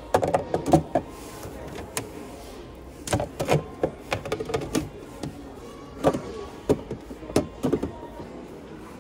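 Hard white plastic trays and storage boxes clattering and knocking against each other and the wire display basket as they are lifted and set back down, in a few short bursts of knocks.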